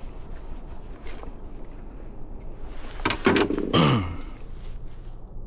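Steady low background noise with faint small handling ticks, broken about three seconds in by a man's short wordless vocal sound that falls in pitch.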